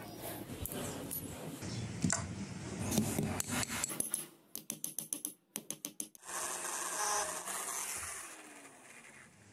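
Handling and scraping sounds of a thin spring-steel wire being worked against pliers and a steel block. About halfway through there is a quick, even run of about eight light clicks, and near the end a rubbing hiss that fades away.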